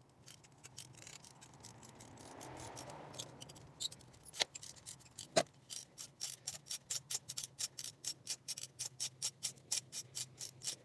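Ratchet wrench clicking rapidly and evenly, about five clicks a second, as it turns a spark plug socket on an extension to back a spark plug out of a VW 2.0 TSI engine. Before the clicking, a soft scraping is followed by two sharp knocks about a second apart.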